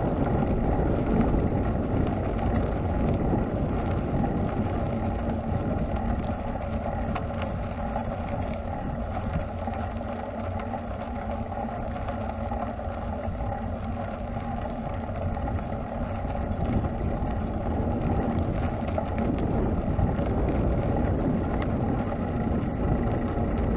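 Steady rumbling noise of wind buffeting the microphone and tyres rolling over a gravel path during a ride, easing a little midway and building again.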